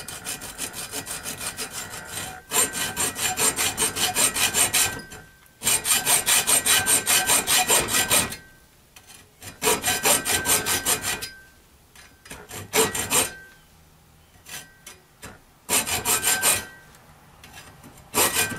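Hacksaw cutting a notch into a metal piece clamped in a vise: quick, even back-and-forth strokes at about four a second, in runs of one to three seconds broken by short pauses.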